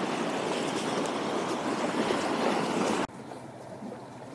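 Steady rush of running water, cutting off abruptly about three seconds in and giving way to a much fainter outdoor hiss.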